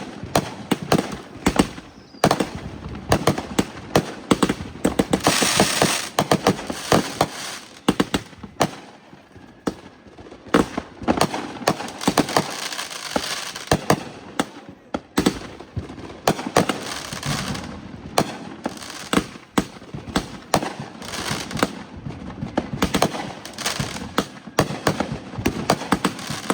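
Fireworks going off in a rapid, continuous barrage of sharp bangs and pops, with a hissing crackle about five seconds in.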